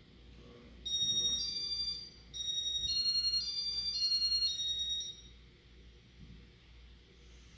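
Electronic beeper in a Casablanca Four Seasons ceiling fan's controls playing a short melody of high, pure notes, with a brief pause near two seconds in.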